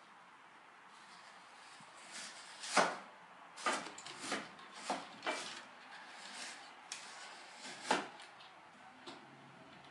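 A kitten's claws scratching and scraping on a woven cane chair back as it climbs, in an irregular string of short scrapes, the loudest about three seconds in and again near the end.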